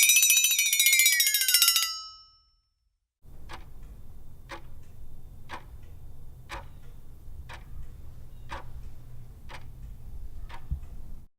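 Clock ticking, about one tick a second, over a low rumble; it starts about three seconds in after a short silence. Before it, a loud high tone with many overtones slides down in pitch and stops.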